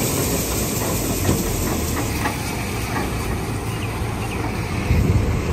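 A steady engine hum under a continuous hiss of rain falling.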